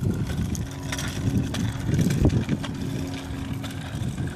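Uneven low rumble of wind and movement on a microphone carried along on a bike ride, with scattered small clicks and rattles.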